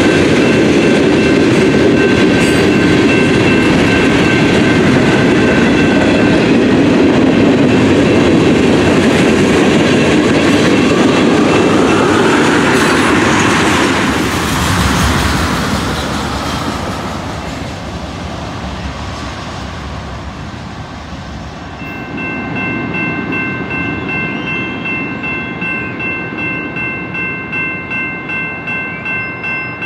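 Covered-hopper freight cars rolling by on the rails with wheel clatter, the noise easing off as the last car passes about halfway through. Then a grade-crossing bell rings on steadily, about two strokes a second, as the crossing gates begin to lift.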